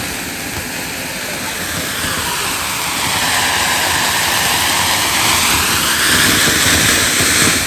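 Ground fountain firework (anar) burning, spewing sparks with a steady, loud rushing hiss that grows somewhat louder toward the end.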